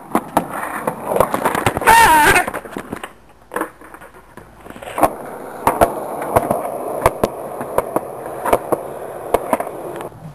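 Skateboard wheels rolling on hard pavement, with sharp clicks that come about every 0.7 s in the second half. A short wavering high sound about two seconds in.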